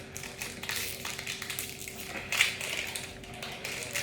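Foil wrapper of a Pokémon trading-card booster pack crinkling and crackling in irregular strokes as it is handled and torn open, loudest about two and a half seconds in.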